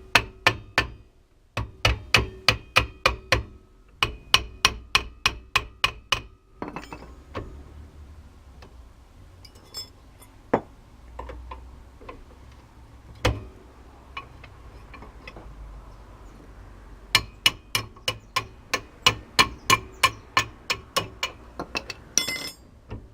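Hammer blows on metal, driving a wheel bearing out of a Ford Escort's rear brake-drum hub, a job that is stubborn here. The sharp, ringing strikes come in runs of about four a second, with a few scattered single knocks in a pause through the middle.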